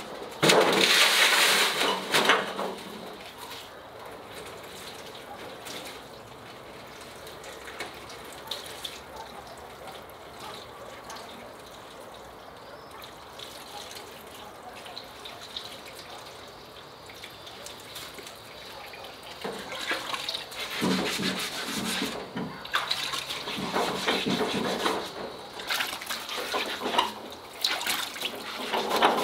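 A bull's head set down in a steel tray with a loud burst of noise, then hot water poured from an electric kettle over the head in a long steady stream, running into the tray. In the last ten seconds the sound turns rougher and louder as a brush is rubbed over the wet skin.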